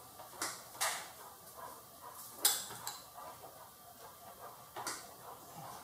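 A few sharp, separate metallic clicks and clinks from a wrench working the carburetor-to-manifold mounting nuts a small turn at a time.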